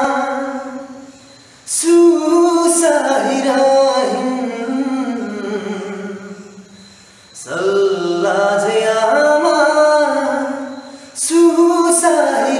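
A young man singing unaccompanied, in phrases of long held, wavering notes, with short breath pauses about a second and a half in, about seven seconds in, and again near the end.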